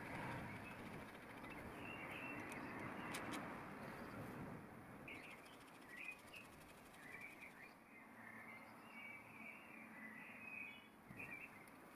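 Faint birds chirping in the background. In the first half there is soft rustling and a few light clicks as small steel tool parts are handled and a nut is threaded on.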